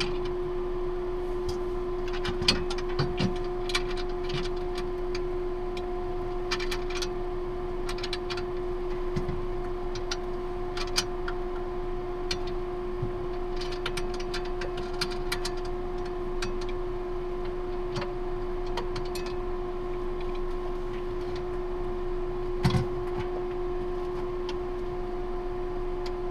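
Steady machinery hum of the space station cabin, with scattered metallic clicks and knocks as a manovacuummeter pressure gauge is fitted onto a hatch and screwed on by hand.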